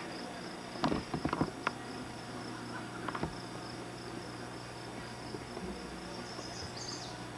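An insect trilling steadily in a high, pulsing tone over a faint steady hum, with a few sharp clicks about a second in and a couple more around three seconds in.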